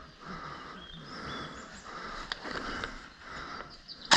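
Rustling noise rising and falling in uneven swells as an airsoft player moves, with a couple of sharp clicks about two and a half seconds in. Right at the end, a rapid burst of airsoft gun fire starts.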